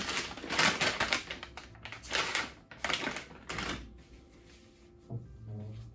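Makeup brushes and tools clattering and rustling as they are handled and sorted, in four or five quick bursts over the first four seconds, then quieter.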